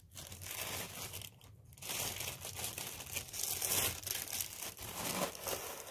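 Thin clear plastic poly bag crinkling as it is handled and opened, with a brief lull about a second and a half in.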